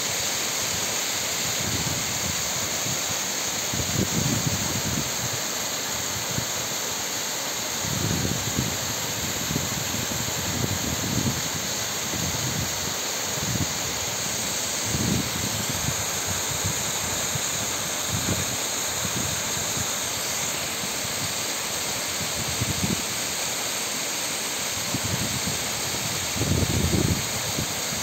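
Small waterfall cascading over mossy rock, a steady rushing splash of falling water. Brief low rumbles break in every few seconds, strongest near the end.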